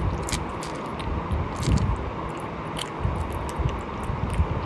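A person chewing and biting cooked sheep's head meat close to the microphone: wet, squishy mouth sounds with scattered small clicks.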